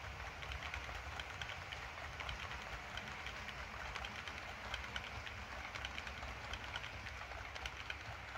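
Model railway hopper wagons, heavy metal ones, rolling along the track under load: a steady low hum with quick, irregular clicking of the wheels over the rails and rail joints.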